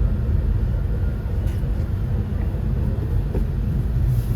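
2017 Subaru WRX's turbocharged 2.0-litre flat-four running steadily at low revs on the road, a constant low rumble with road noise. The freshly rebuilt engine is being broken in, driven gently.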